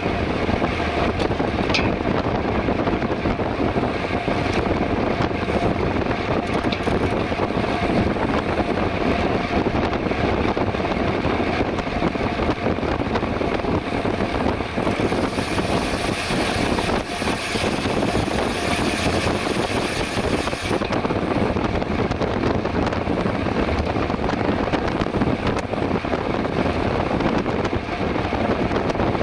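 Steady rush of wind over the camera microphone, with tyre noise from a mountain bike riding at speed on a paved road. A brighter hiss rises for several seconds past the middle, then cuts off suddenly.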